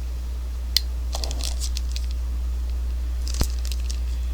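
A few short plastic clicks and light rustling from a dog-fence receiver collar being handled and turned over, the sharpest click about three and a half seconds in. A steady low electrical hum runs underneath.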